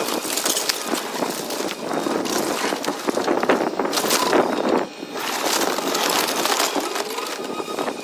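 Splintered wood and house debris crunching and clattering as a tracked excavator's bucket grabs and drops it, with the excavator running. The crackling is dense and continuous, with a short lull about five seconds in.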